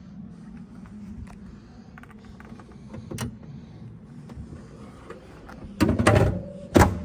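The steel bonnet of an MGB GT being lowered and slammed shut: a loud clatter, then a sharp bang under a second later as it latches.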